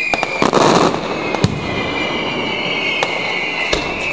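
Fireworks finale: high whistles that slowly fall in pitch, over sharp bangs, with a loud crackling burst about half a second in.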